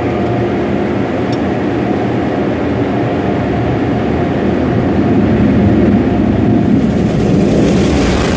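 Automatic car wash machinery running, a loud steady rushing heard from inside the car through its missing rear window. It swells about halfway through, and a high hiss joins near the end.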